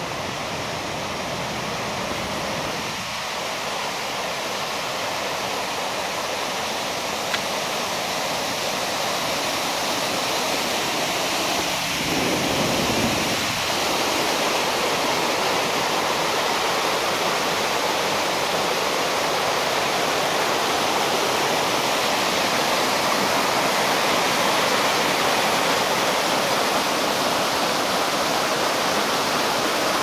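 Creek cascading over a waterfall and rapids: a steady rush of water that grows louder about twelve seconds in.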